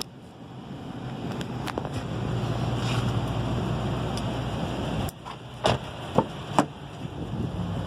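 Steady wind-like rushing with a low hum, then three sharp clicks a little past halfway through as the Honda Pilot's door handle and latch are worked to open the door.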